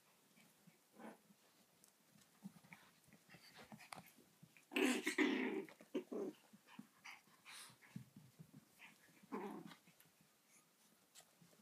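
Yorkshire terrier puppies growling faintly, with the loudest growl about five seconds in and another shorter one later, among scattered small clicks and scuffs.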